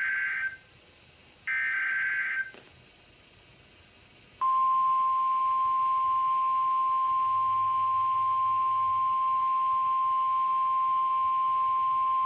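NOAA Weather Radio EAS alert: the end of one short screeching burst of SAME header data tones, a second identical burst about a second and a half in, then after a pause the steady single-pitch 1050 Hz warning alarm tone, starting about four seconds in. The sequence announces a severe thunderstorm warning about to be broadcast.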